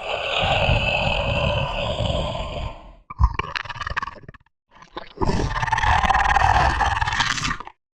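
Alien monster sound effect: a long roar, then a short burst of choppy growls about three seconds in, a brief gap, and a second long roar that stops shortly before the end.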